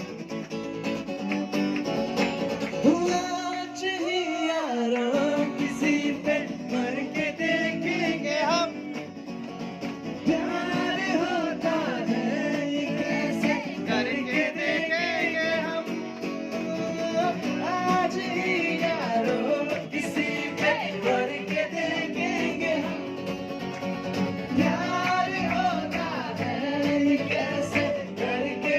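A song with guitar accompaniment and a singing voice.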